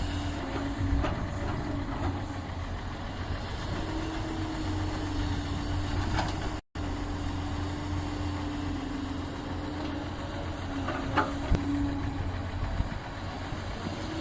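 Heavy diesel engine running steadily at a constant pitch, with a brief cut to silence about halfway through and a couple of short knocks near the end.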